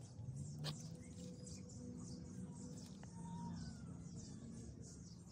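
Faint bird chirps over a low background hum, with one sharp click near the start.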